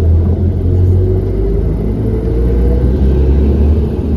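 Steady low road rumble from inside a moving vehicle, with a faint rising engine whine a second or so in.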